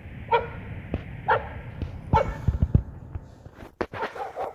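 A dog barking in short single barks, about once a second, three times and then once more near the end.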